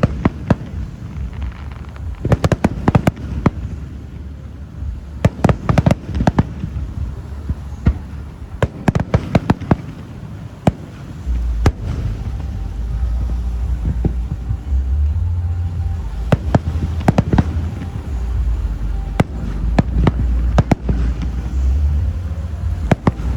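Aerial fireworks display: many sharp bangs and pops, some in quick clusters, over a deep low rumble that grows stronger about halfway through.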